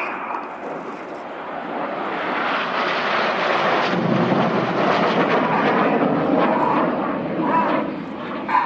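A formation of Red Arrows BAE Hawk T1 jets passing, their jet engine noise swelling to a peak around the middle and easing off near the end.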